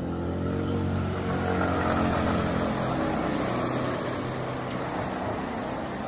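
A motor vehicle engine hums steadily over a constant rushing noise, the hum fading over the last second or two.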